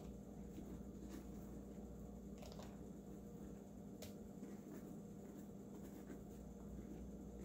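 Faint squishing and scraping of a hand scooping wet seeds and stringy pulp out of the inside of a raw pumpkin, with a few light clicks, over a steady low hum.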